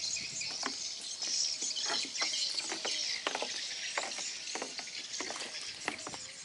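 Footsteps and light knocks on the planks of a wooden jetty, over a steady high chirping chorus.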